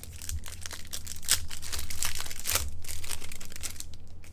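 A stack of hockey trading cards being shuffled and slid through by hand: a dry papery rustle made of many quick flicks, busiest in the middle.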